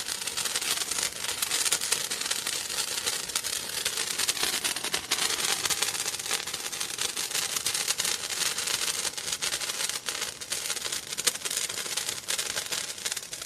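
Handheld firework burning: a steady spray hiss thick with rapid crackles, which cuts off suddenly near the end as it burns out.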